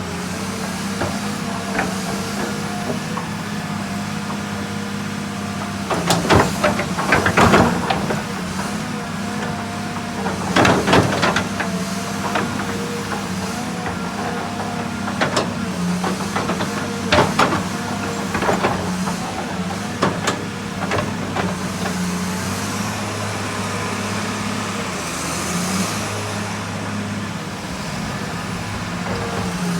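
Hydraulic excavator's diesel engine running steadily, with a higher whine from the hydraulics, and several bursts of metallic clanks and rattles as the machine works.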